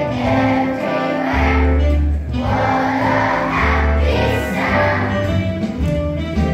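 Children's choir singing a song with instrumental accompaniment, sung notes shifting over a heavy bass line.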